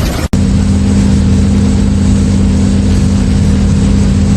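A loud, steady motor drone holding an even low pitch over a rumble, starting after a sudden cut a moment in.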